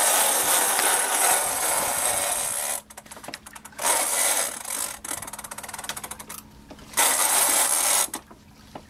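Big-game fishing reel's drag screaming as a hooked bluefin tuna runs and strips line: a long high buzz, then two shorter ones about four and seven seconds in, with slower clicking of the reel between the runs.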